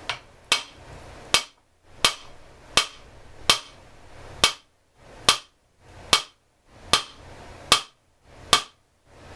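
About a dozen sharp hammer taps at an even pace, a little over one a second, on a partly dismantled Echo CS-400EVL chainsaw, knocking loose a part that is rusted in.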